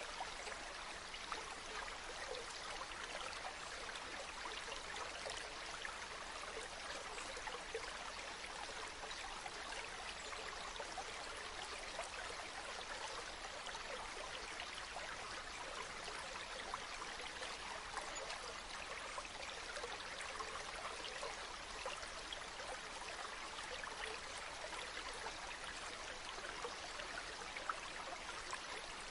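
Waterfall: water falling and splashing steadily, an even rush with many small splashes and no change in strength.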